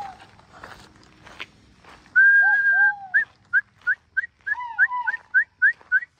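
High whistled calls: one long steady note about two seconds in, then about ten short rising notes, roughly three a second, with a few lower falling notes mixed in.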